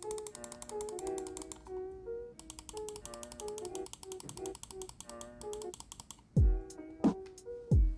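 Incott G23 gaming mouse giving rapid runs of small, sharp clicks, many a second, over background music. The clicks stop after about six seconds and a heavy kick drum comes into the music.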